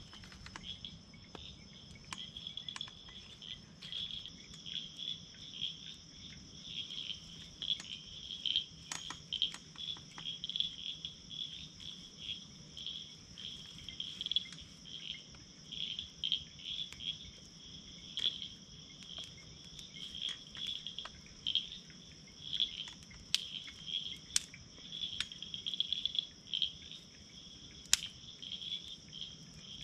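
Steady high-pitched chorus of insects, one voice trilling in quick pulses, with scattered sharp pops and crackles from a small wood campfire as it catches and burns up.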